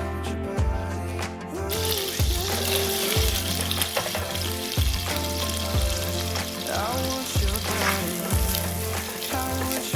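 Food sizzling in a hot frying pan, starting suddenly just under two seconds in, over background pop music with a steady beat.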